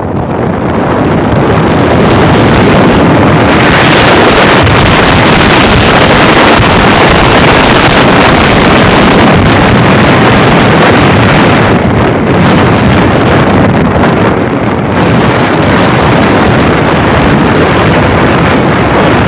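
Heavy wind noise buffeting the microphone of a motorcycle in motion, a loud, rushing roar that swells in the first couple of seconds and then holds.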